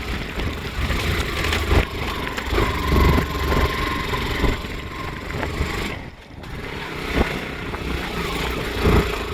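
Motorcycle running on a rough dirt road, its engine noise mixed with several sharp knocks and rattles from the bumpy ride. The sound drops briefly about six seconds in.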